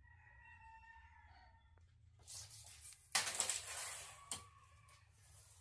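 Steel tape measure blade being pulled out along the edge of a plywood sheet, a rattling, hissing slide that lasts about two seconds, ending in a sharp click.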